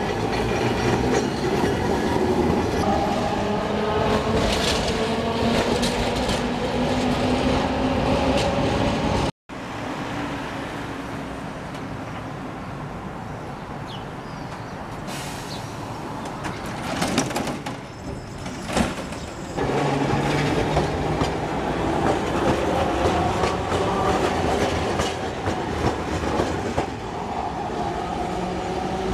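Electric tram cars of Alexandria's Raml line running along the rails, with a rumble of wheels on track and a whine that rises and falls in pitch. The sound breaks off abruptly about nine seconds in, then comes back quieter with a couple of sharp knocks. From about twenty seconds in, a tram is running again with a steady hum.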